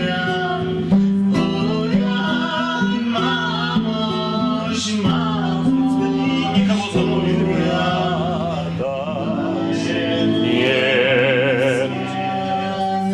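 A slow Russian romance sung to acoustic guitar. Plucked guitar notes run under the voice, and in the second half the voice holds long notes with wide vibrato.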